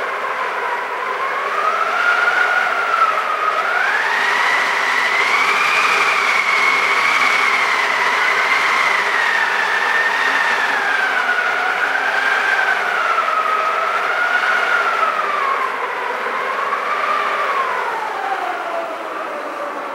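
Homemade wind sound effect: a howling, whistling wind whose pitch sways slowly up and down, climbing to its highest about a third of the way through and sinking low near the end.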